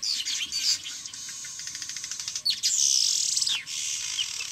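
Weaver birds chattering at their nesting colony: many overlapping chirps and short sweeping calls, with a fast, buzzy rattle in the middle.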